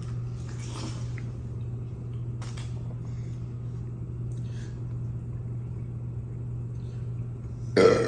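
A steady low room hum with a few faint eating noises, then a short loud burp near the end.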